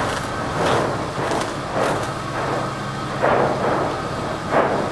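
Basaltic fissure eruption's lava fountains roaring continuously, swelling in irregular surges.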